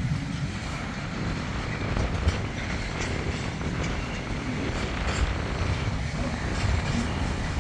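Loaded container wagons of a freight train rolling past on the track: a steady rumble of wheels on rails, with a few faint clicks.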